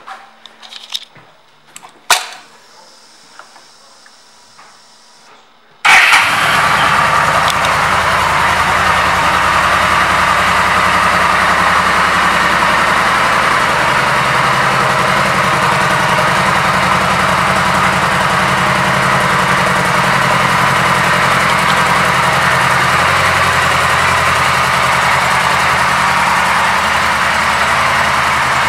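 A few clicks in a quiet room, one of them sharp and loud about two seconds in, then the 2015 Yamaha V Star 1300 Tourer's V-twin engine starts abruptly about six seconds in and idles steadily.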